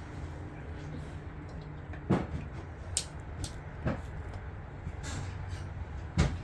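Plastic Lego toys being handled: a few separate knocks and clicks, the strongest about two seconds in and near the end, over a steady low hum.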